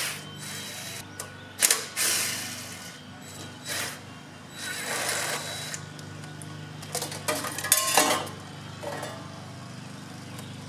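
Cordless drill-driver with a socket extension whirring in about six short spurts, backing bolts out of a small-engine carburetor and its intake elbow.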